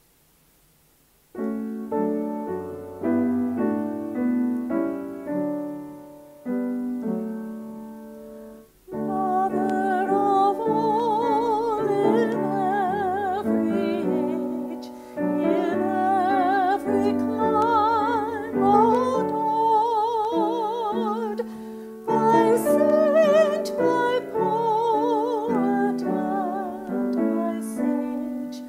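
A piano plays a short introduction of an Irish hymn melody. About nine seconds in, a woman's voice joins, singing the hymn verse with vibrato over the piano accompaniment.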